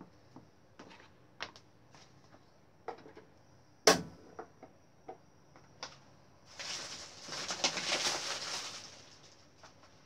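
Small kitchen handling noises: scattered light clicks and taps, with one sharp knock about four seconds in, then a rustling hiss that swells and fades over about two and a half seconds.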